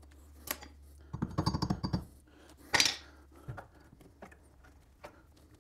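Hand tools working at a rusted cotter pin in a castle nut: light metallic clicks, a short run of small clinks, then one sharper metal scrape about three seconds in, followed by a few faint ticks.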